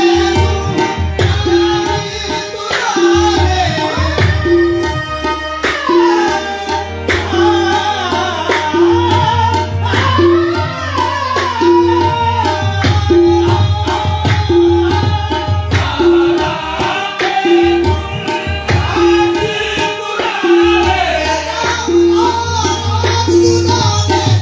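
Qawwali: a voice singing with gliding ornaments over harmonium, with tabla keeping a steady beat of about two strokes a second.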